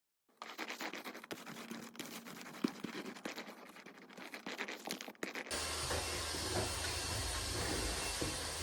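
Sticky lint roller rolled over fabric, a faint irregular crackling scratch. About five and a half seconds in, a vacuum cleaner starts running with a steady hum and hiss.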